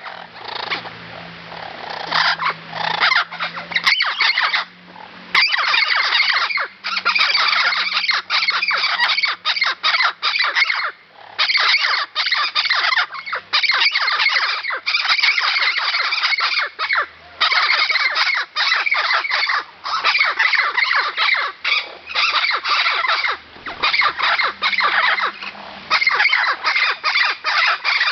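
Vinaceous-breasted amazon parrots calling loudly in long, rapid runs of repeated calls, with only short breaks.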